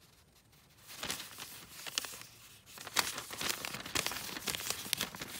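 Long paper receipt strip rustling and crinkling as it is handled and flipped, with many small crackles starting about a second in.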